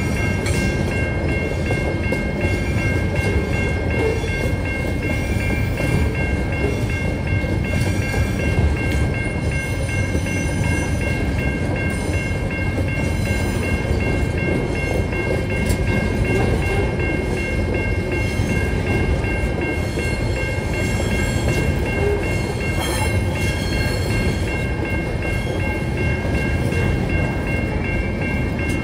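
Loaded container wagons of a Tasrail freight train rolling past at steady speed, with a continuous rumble of wheels on rail. Over it the level-crossing warning bell rings steadily.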